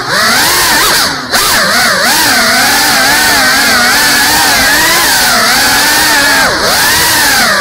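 GEPRC CineLog 35 cinewhoop drone's brushless motors and 3.5-inch ducted propellers buzzing in flight, the pitch swooping up and down constantly with the throttle. The buzz dips low for a moment about a second in and again near the end, as the throttle is chopped.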